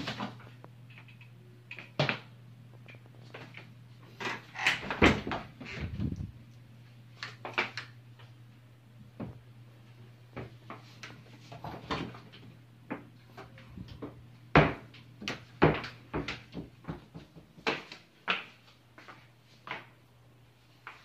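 Wooden wardrobe doors being opened and handled, with a string of irregular clicks and knocks, the loudest about five seconds in and near the middle, over a steady low hum.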